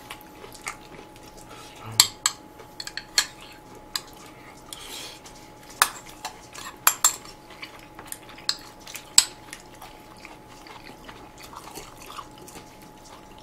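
Chopsticks and spoons clinking against ceramic bowls and plates at a meal, a dozen or so sharp, irregular clinks with quiet gaps between them, over a faint steady hum.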